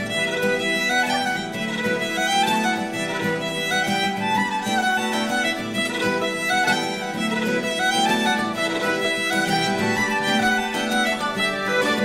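Irish traditional fiddle music, a lively slip jig with the fiddle playing a quick running melody over a steady accompaniment.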